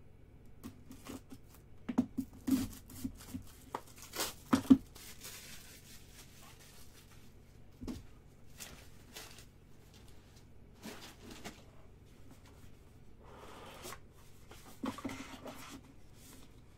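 Hands opening a cardboard Leaf Trinity football card box: tearing and crinkling of its wrapping, with sharp knocks and clicks of the box and lid, loudest about four to five seconds in, and more rustling near the end.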